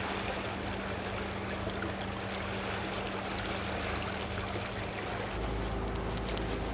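Sea water washing and lapping against a concrete breakwater, an even wash of noise. About five seconds in a low rumble comes in under it.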